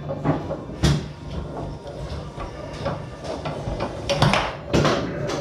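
Foosball play on a Tornado table: the hard ball struck by the rod men and knocking against the table walls, with rods clacking. A loud knock about a second in, and a cluster of loud knocks around four to five seconds in.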